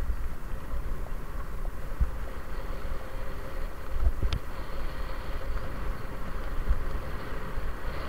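Wind buffeting a bicycle-mounted camera's microphone over steady tyre and road noise as the bike rolls along a road. A single sharp click about four seconds in.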